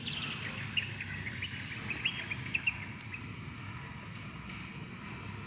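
A quick run of short, high chirping calls in the first three seconds, drifting slightly down in pitch, over a steady low outdoor rumble.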